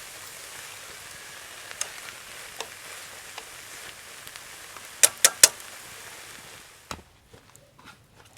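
Steady sizzling of food frying in a pan over a fire, with a few pops and three sharp clicks in quick succession about five seconds in. The sizzle falls away about a second before the end, leaving only faint scattered clicks.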